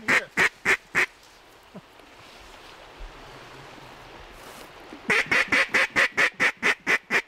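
Loud mallard quacking in evenly spaced short notes: a run that stops about a second in, then after a pause a second run of about a dozen quacks at roughly five a second.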